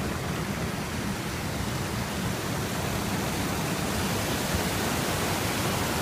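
Water of a small waterfall rushing over rock ledges: a steady, even rush.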